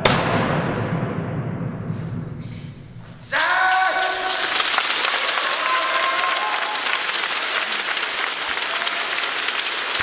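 A last heavy drum stroke rings out and dies away in the hall's echo over about three seconds. Then a shout goes up and the audience breaks into applause that keeps going.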